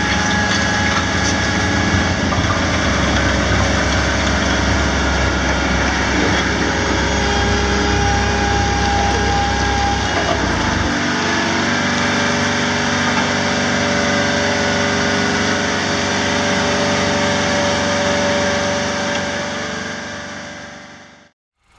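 Vibratory road roller's diesel engine running steadily. A deep low rumble drops away about halfway through, and the sound fades out near the end.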